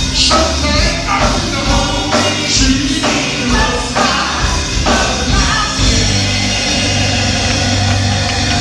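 Live gospel band playing: a lead singer over electric guitar, drums and keyboard.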